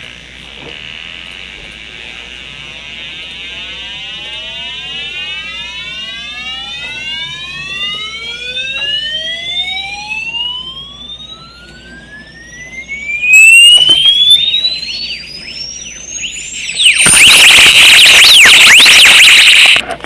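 Electronic tones, several overlapping, each sliding slowly upward in pitch from low to very high. Near the end they give way to a very loud, harsh screech that cuts off suddenly.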